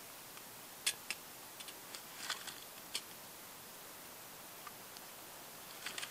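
Light clicks and clinks of a small camp stove and cook pot being handled, a handful of sharp taps in the first three seconds and a couple more near the end.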